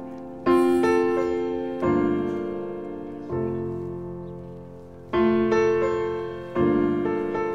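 Slow solo piano music: chords struck about every second and a half, each ringing out and fading before the next.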